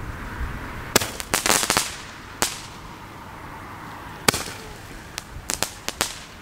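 Fireworks going off in sharp, irregular cracks: one about a second in, then a quick cluster, single cracks a little later, and a run of several close together near the end.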